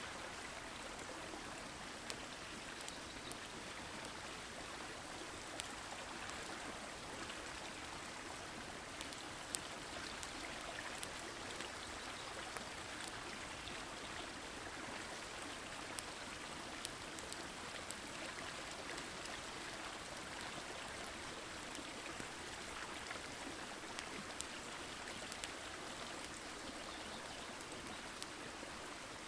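A forest stream rushes steadily, with scattered sharp crackles and pops from a campfire.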